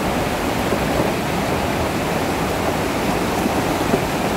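Muddy floodwater of a torrent in spate, carrying silt and debris, rushing past in a loud, steady rush.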